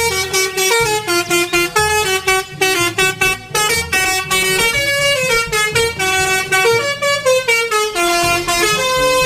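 Toy telolet bus sounding its musical horn: a quick tune of horn notes that steps up and down in pitch several times a second, without a break.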